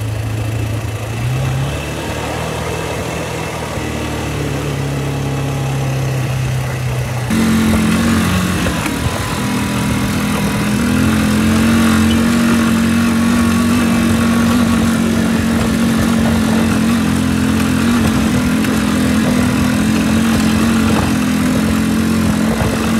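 ATV engine running under way, its note stepping up in pitch in the first couple of seconds. About seven seconds in the sound changes abruptly to a steadier, higher engine drone that holds to the end.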